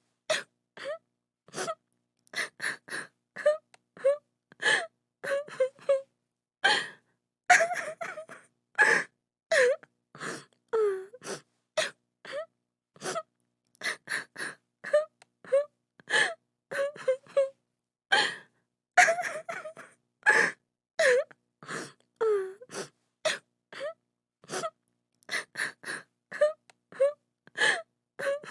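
A woman sobbing: a quick run of short gasping sobs, a few with a falling, wailing pitch, each broken off by dead silence.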